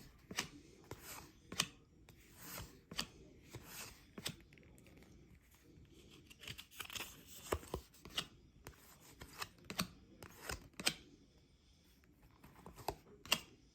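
Baseball trading cards being flipped through by hand: irregular crisp snaps and slides of card against card, roughly one a second.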